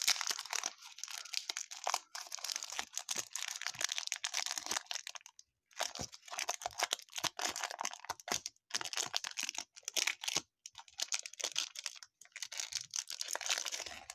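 Baseball card pack wrappers crinkling and tearing as packs are opened by hand: dense runs of crackle with a few brief pauses.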